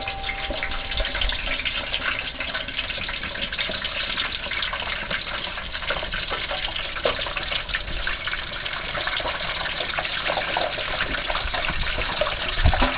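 Hot oil in a propane turkey fryer bubbling and sizzling as a 14-pound turkey is lowered into it, a dense, steady crackle of many small pops that grows a little louder near the end.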